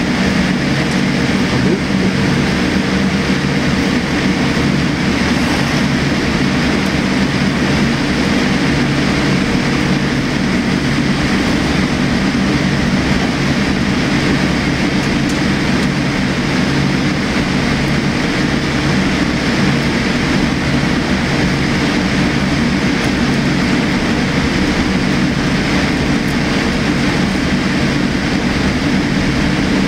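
Steady cabin noise inside a taxiing Boeing 787-8: its Rolls-Royce Trent 1000 engines running at taxi idle, with a low hum under a broad hiss.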